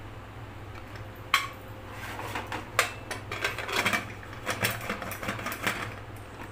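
Metal pressure cooker lid being put on and locked shut. A sharp metal clank comes about a second in, then a few seconds of scraping and clattering as the lid is worked into place.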